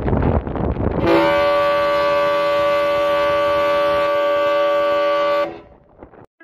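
The ferry Salish Raven's ship's whistle sounding one long steady blast of several notes at once. It starts about a second in and cuts off sharply about four and a half seconds later.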